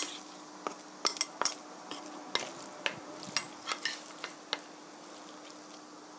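A metal spoon and a wooden spatula clink and scrape against a stainless-steel pot as braised chicken is lifted out to serve. There are about a dozen sharp, irregular clinks over the first four and a half seconds.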